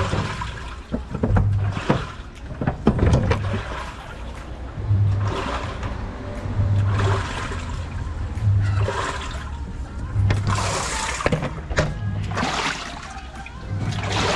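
Sharp automatic washing machine in its wash cycle: the motor hums in short pulses about every second and a half to two seconds as the wash plate turns, while water sloshes and splashes in the drum.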